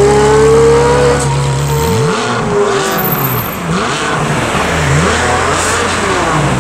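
Loud Ferrari 360 Challenge Stradale V8 accelerating, its engine note climbing through about the first second. It then runs on as a rushing engine sound that swells and fades in waves.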